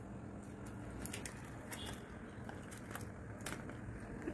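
A dog eating noodles from a foil tray: faint, irregular wet smacking and chewing clicks as it mouths the food.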